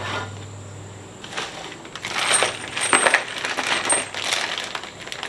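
Small metal mounting hardware (bolts and washers) clinking and jingling together as it is handled, a string of light metallic clinks for about three seconds through the middle.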